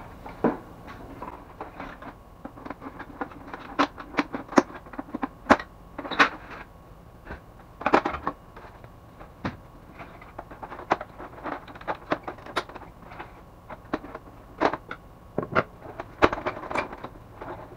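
Irregular sharp plastic clicks, snaps and knocks from an HP LaserJet 400 M401dn laser printer's casing, as its covers are opened and unclipped and the printer is shifted around on a table.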